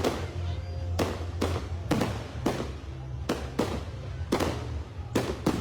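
Fireworks display: a fast series of sharp aerial shell bangs, about two a second, each trailing off in an echo, over a steady low rumble.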